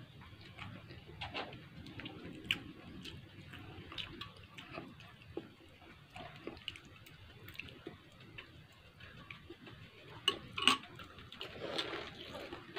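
A person chewing food with their mouth close to the microphone: scattered wet mouth clicks and smacks, with a louder cluster of clicks a little after ten seconds.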